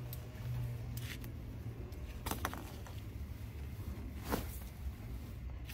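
Tent fabric being handled: a few short rasping swishes over a low steady hum.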